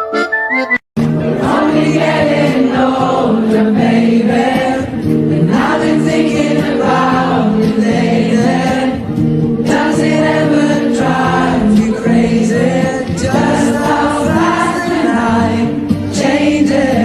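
Music with a choir singing. It breaks off briefly about a second in, then runs on without a pause.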